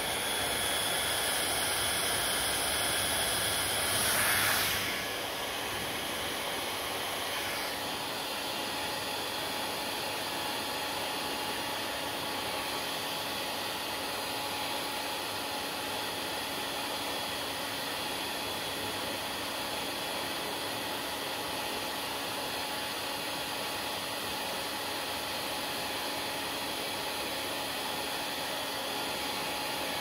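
Handheld hair dryer blowing steadily, a rush of air with a faint steady whine from its fan motor. It is a little louder for the first five seconds, then holds at a slightly lower level.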